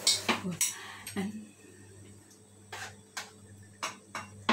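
Cutlery clinking against ceramic bowls and a metal pan while herbs are spooned out: several light separate clinks in the second half.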